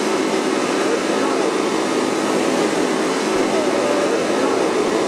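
Several small engines of a large radio-controlled Spruce Goose (Hughes H-4 Hercules) flying-boat model running together in a steady drone, with crowd voices murmuring over it.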